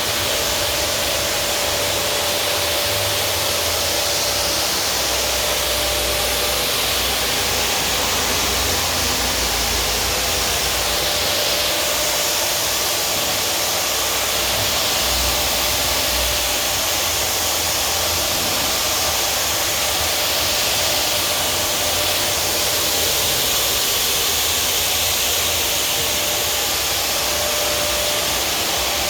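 Detailing air blower running steadily: a loud, even rush of air with a faint steady motor hum, blowing water off a surface coated with rain repellent to dry it.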